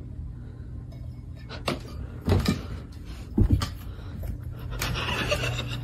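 Several separate knocks and thumps over a steady low hum.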